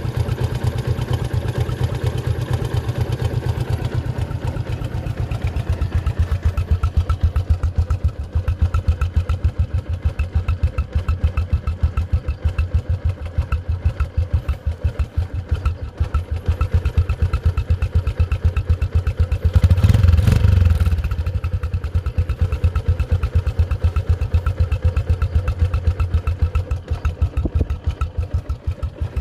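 Yamaha Exciter 135's single-cylinder four-stroke engine idling with a steady, even beat, given one brief rev about two-thirds of the way through before settling back to idle.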